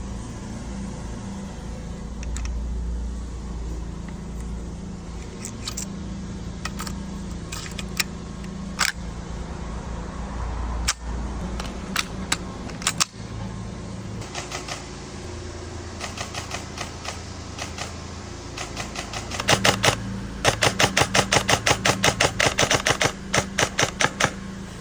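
Airsoft guns firing: scattered single sharp shots, then a quick string of about four shots a second near the end.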